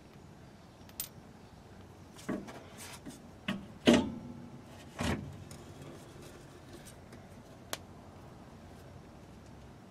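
A series of knocks and clunks as a Toyota Yaris rear shock absorber's lower rubber-bushed eye is worked off its mounting stud and the shock drops free; the loudest knock comes about four seconds in, with another about a second later.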